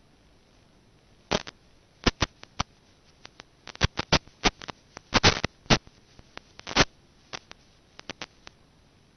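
Irregular sharp clicks and crackles over a faint hiss: static on the audio channel of an analog FPV video link that has no microphone fitted. The pops are thickest in the middle, where the video signal breaks up.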